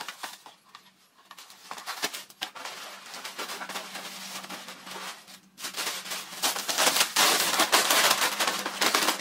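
Tissue paper and plastic packaging crinkling and rustling as they are handled and packed into a wicker basket. The crinkling grows louder and denser about halfway through.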